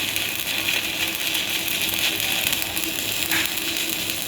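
Stick (SMAW) welding arc burning steadily, a continuous crackling hiss, as a bead is run after the arc was struck by tapping the electrode.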